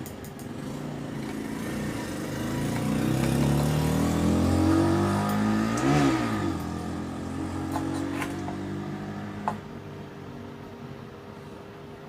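A motor vehicle driving past. Its engine note grows louder, peaks about six seconds in as the pitch drops, then fades away. A few light clicks follow.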